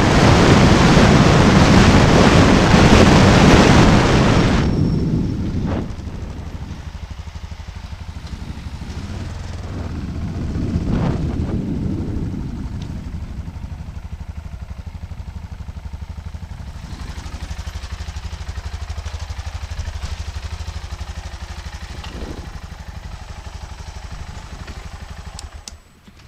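Motorcycle ride: loud wind rush over the microphone for the first few seconds, then the engine running at low speed while the bike slows and rolls along. About 26 seconds in, the sound drops off suddenly as the bike comes to a stop.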